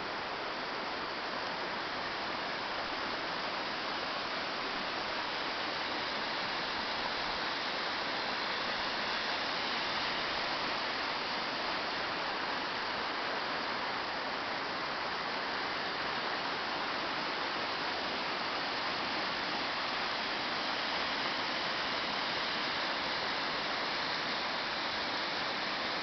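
A creek in flood: fast, high water rushing steadily and evenly.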